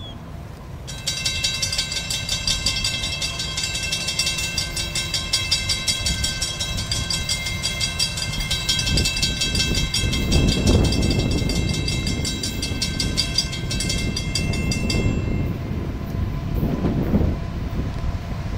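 A railroad grade-crossing bell ringing rapidly, starting about a second in and stopping abruptly near fifteen seconds, over wind on the microphone. Beneath it the low rumble of an approaching freight train led by EMD SD70M-2 locomotives swells from about halfway through.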